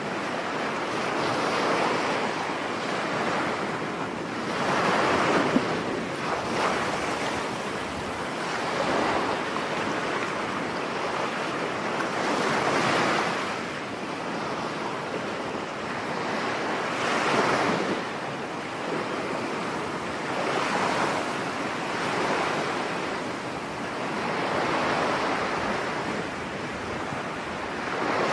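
Ocean waves washing onto a shore: a continuous hiss of surf that swells and ebbs about every four seconds as each wave breaks.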